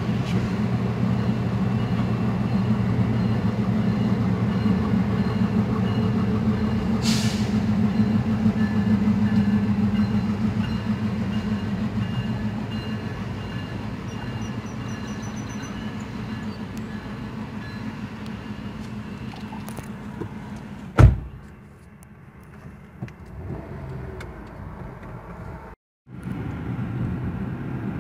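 Low, steady drone of a Canadian Pacific heritage passenger train's diesel locomotives moving slowly past, heard from inside a car. It fades over about ten seconds, then comes a single sharp knock, a brief cut-out, and the car's own road noise as it pulls away.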